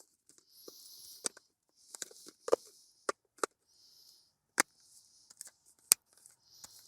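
Parts of a coffee maker being handled and fitted back together after the grounds are tamped: a string of sharp clicks and knocks, with short scraping or rubbing sounds between them.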